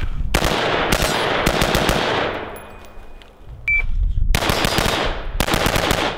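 Geissele URGI 5.56 mm AR-15-type rifle fired in two rapid strings of shots, each shot echoing. The first string starts just after the beginning and the second about four seconds in, with a quieter pause of about two seconds between them.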